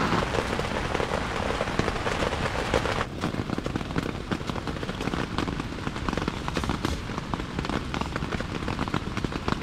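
Heavy rain falling, a dense hiss full of separate drop hits. About three seconds in the hiss thins and the individual drop impacts stand out more.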